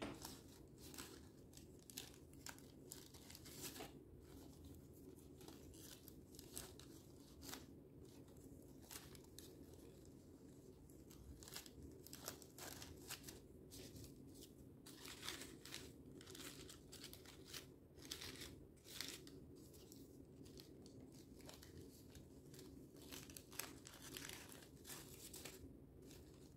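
Faint, irregular crinkling and rustling of paper coffee filters being handled and bent into lily petals, over a steady low room hum.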